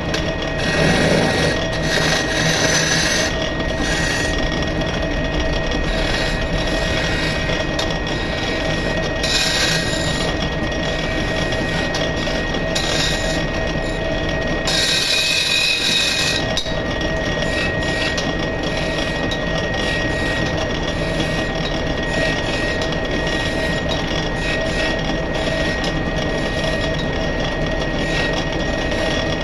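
Electric wood lathe running steadily with a steady hum, while a turning chisel cuts the spinning wood of a cot leg in several short, hissing bouts.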